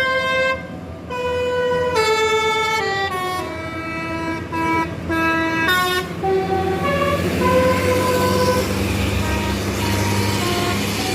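Bus 'telolet basuri' multi-tone horn playing a tune: a run of held notes stepping down in pitch over about six seconds. After that the notes grow fainter under a steady rushing noise, with a low engine hum underneath.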